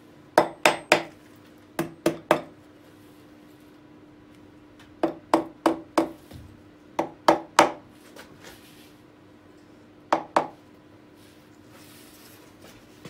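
Light taps on the VW VR6 engine's top cam cover to seat it on its new gasket, in quick groups of two to four sharp knocks a few seconds apart.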